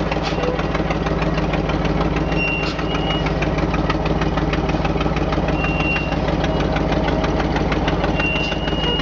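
1977 GMC dump truck engine running steadily at low speed with a fast, even firing pulse. A short, thin high squeal sounds now and then over it, a few times.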